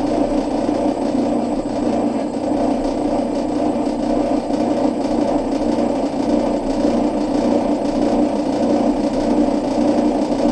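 A small motor running steadily with a continuous whirr.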